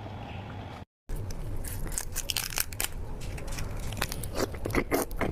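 Whole cooked prawns being pulled apart and peeled by hand, the shells cracking and crackling in a dense run of sharp clicks. The sound starts after a brief dropout about a second in.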